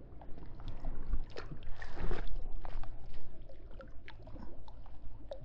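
Lake water lapping and sloshing around people wading chest-deep, with faint light splashes here and there.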